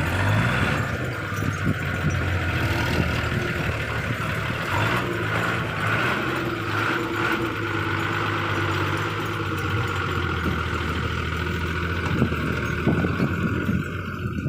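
Fully loaded 1985 Bedford truck's engine running steadily under load, its pitch shifting slightly a few seconds in.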